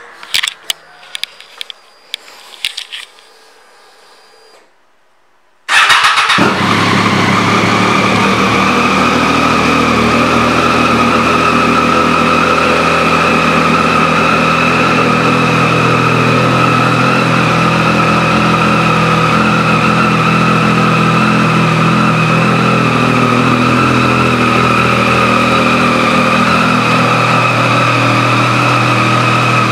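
A few clicks, then about six seconds in the 2014 Triumph Street Triple R's 675 cc three-cylinder engine starts and settles into a steady idle through its aftermarket exhaust.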